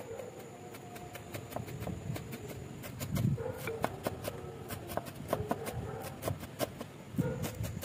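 Chef's knife finely chopping fresh dill on a wooden cutting board: a quick, irregular run of blade taps against the board.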